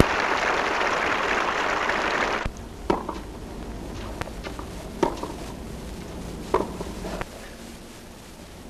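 Crowd applauding, cutting off abruptly about two and a half seconds in. Then tennis balls struck by rackets in a rally: sharp single pocks about one and a half to two seconds apart over a steady hiss.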